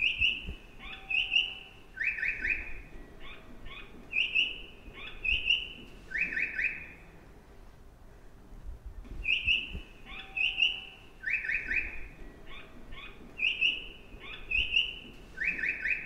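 Recorded bird chirps played as a train station's stair-guidance sound for vision-impaired passengers: pairs of bright chirps and short trills, the same sequence repeating about every nine seconds over a low rumble.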